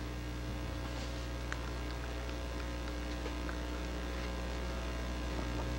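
Steady electrical mains hum with its overtones, carried in the recording's sound, with a few faint small clicks.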